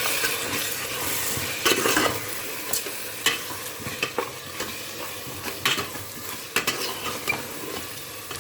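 Spoon stirring a pot of onion, tomato and ginger-garlic masala frying in oil and ghee as spice powders are mixed in: a steady sizzle with scattered knocks and scrapes of the spoon against the pot.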